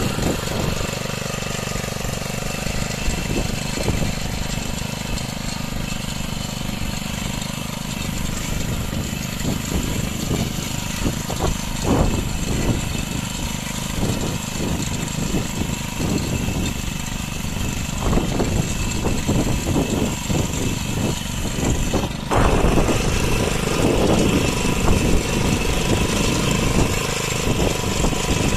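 Small engine of a self-propelled blade harrow (guntaka) running steadily under load as it works the soil between crop rows, with irregular knocks and rattles. It gets louder about three-quarters of the way through.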